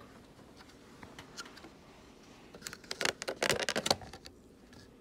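Handling noise from a plastic cup and packing: a quick run of sharp clicks and crackles about three seconds in, faint ticks otherwise.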